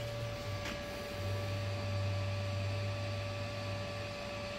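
Steady low electrical hum with a faint constant higher tone over a light hiss.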